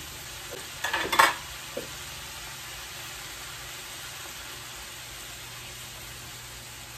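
A frying pan of sliced peppers and vegetables sizzling steadily on the stove, with a brief clatter about a second in.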